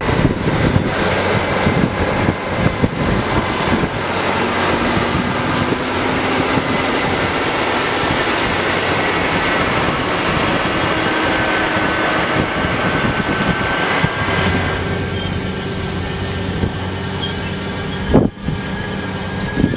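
A tractor's six-cylinder diesel pulling an eight-row potato planter through the field: a steady engine drone under a loud, constant metallic clatter and rattle from the planter. The sound drops out briefly about 18 seconds in, then resumes.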